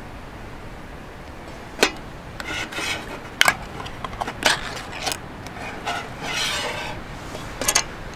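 A ring-pull food can being opened by hand: several sharp metallic clicks, the loudest about two seconds in, and two short scraping tears as the lid is peeled back.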